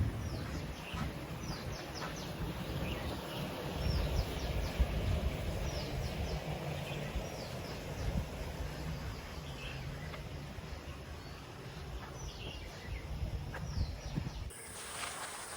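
Birds chirping: short, high calls that sweep downward, repeating every second or so, over a low rumble that stops near the end.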